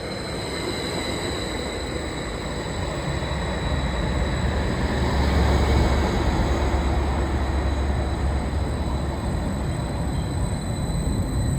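Class 755 train running through, a rumble that grows louder and is deepest and loudest about halfway through, then holds steady.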